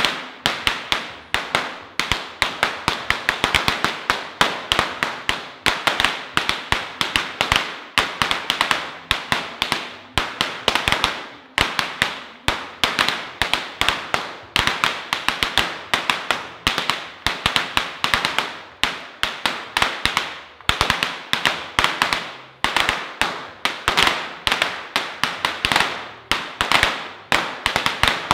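Firecrackers going off on the ground in rapid, unbroken strings of sharp pops and crackles, in irregular clusters with a few brief lulls.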